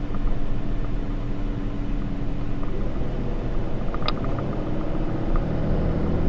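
Inside the cab of a Ram 3500 pickup on the move: steady low rumble of road noise and the 6.7 litre Cummins inline-six turbo diesel's drone, whose pitch shifts about three seconds in. A short click about four seconds in.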